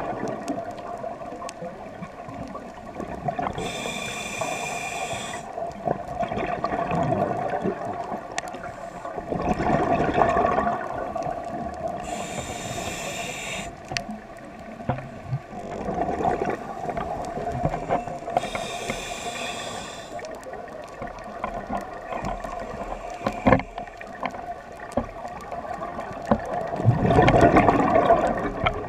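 Scuba regulator breathing heard underwater: a slow cycle of hissing inhalations through the demand valve, each followed by a louder rush of exhaled bubbles, a breath every several seconds. There is one sharp click about two-thirds of the way through.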